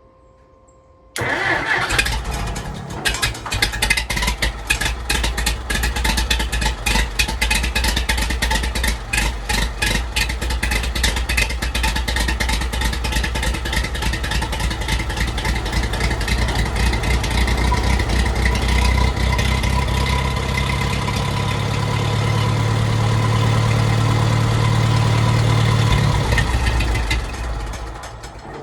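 Minneapolis Moline M602 tractor's gasoline engine, breathing through a newly fitted muffler, starting about a second in and running, getting louder in the last few seconds before dying away near the end.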